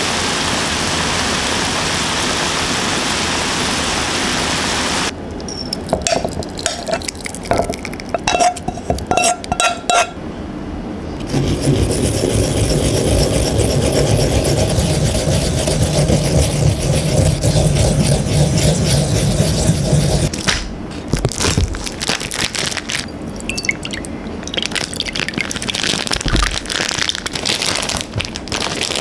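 Minced ginger sizzling in oil in a frying pan, cut off about five seconds in. After some scattered clicks, fresh ginger is rubbed steadily on a small ceramic grating dish for about eight seconds. In the last seconds a plastic pouch crinkles and clicks in the hands.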